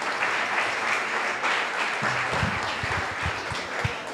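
Audience applauding steadily, with a series of low thuds in the second half.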